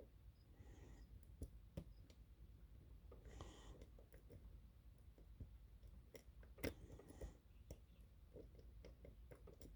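Faint, scattered clicks and scrapes of a lock pick and tension wrench working the pins inside a custom high-security challenge lock while it is being picked.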